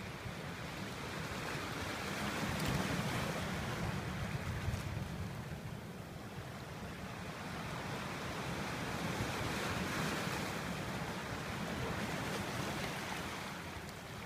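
Sea surf washing onto a stony beach in slow swells that rise and fall, with wind buffeting the microphone.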